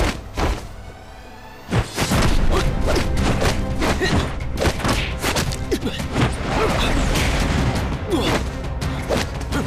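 Fight-scene sound effects: a rapid series of punch and kick hits over background music, with a short lull about a second in before the hits resume.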